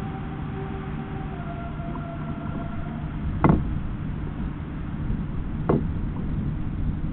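Wind noise on the microphone, a steady low rush, broken by two sharp knocks about two seconds apart as a red squirrel bounds about on the wooden feeder table.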